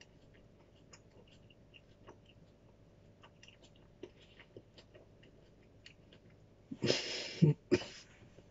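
Faint, wet clicks of a mouth chewing a bite of a superhot chilli pod. Near the end come two loud rushes of breath, the first almost a second long, the second short.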